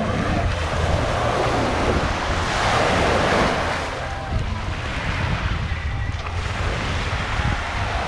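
Waves washing onto the beach, one swelling and breaking about three seconds in, with wind buffeting the microphone.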